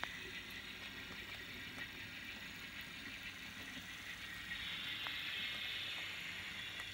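Model train locomotive shoving a boxcar slowly along the track: a faint steady whir of the motor and gears with the wheels rolling on the rails, getting a little louder about four and a half seconds in.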